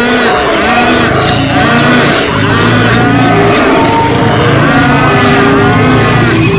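Animal stampede sound effect: many overlapping animal calls rising and falling over a steady low rumble, loud and unbroken.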